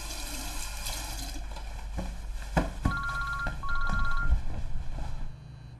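Telephone ringing with an electronic two-tone ring, heard as two short bursts about three to four seconds in, over soft background music; a few low soft knocks come just before the ringing.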